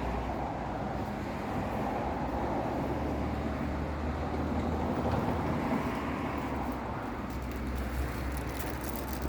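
Steady low background rumble with no distinct events, of the kind heard from distant traffic.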